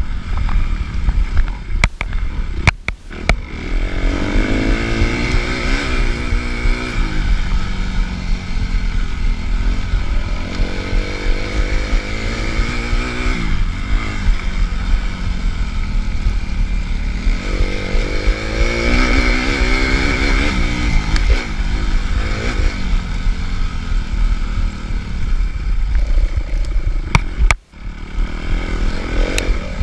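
Suzuki RM-Z250 dirt bike's four-stroke single-cylinder engine revving up and down continuously under hard riding, with knocks and rattles from the bike. The engine cuts back briefly twice, about three seconds in and near the end.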